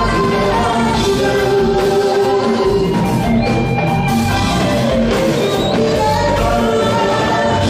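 Live band music with singing, steady and loud.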